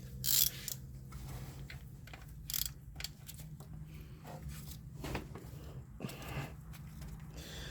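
Scattered light rustles, knocks and clicks of a rubber serpentine belt being worked by hand onto the engine's pulleys, over a steady low hum.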